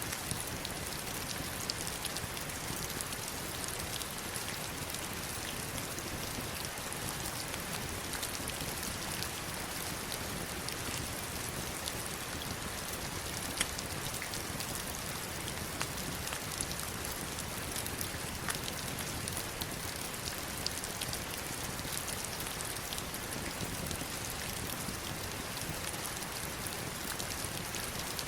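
Heavy rain falling steadily on stones and river water: an even hiss with scattered sharper ticks of single drops striking close by.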